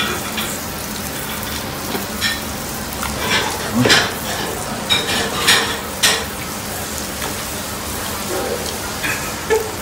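Steak sizzling on a hot iron serving plate: a steady frying hiss, with a few short clicks in the middle.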